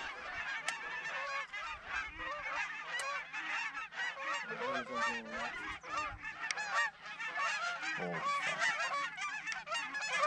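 A large flock of Canada geese honking as it comes in, many calls overlapping with no break.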